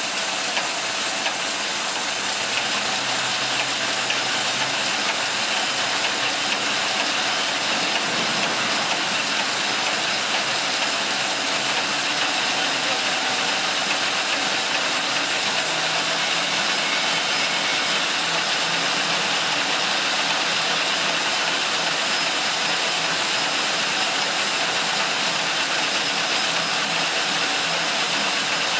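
Envelope window patching machine running at speed, feeding and stacking paper envelopes: a steady, even hissing machine noise with no break.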